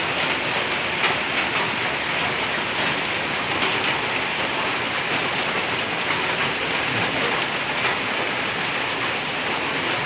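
Steady heavy rain falling on a zinc roof, an even, continuous hiss with no pauses.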